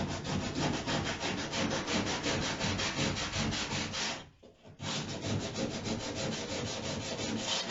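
Sandpaper rubbed by hand over wood in fast, even back-and-forth strokes, with a short break about four seconds in.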